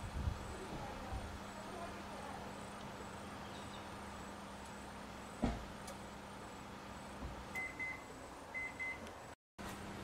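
Microwave oven running with a steady hum, a Tamagotchi inside. A single sharp snap comes about halfway, and two pairs of short, high electronic beeps sound near the end.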